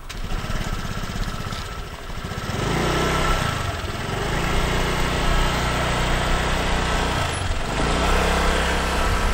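Small motor scooter engine running at a fast-pulsing idle, then revving up about two and a half seconds in and holding a steady higher note as it pulls away. The revs drop briefly near the end and rise again.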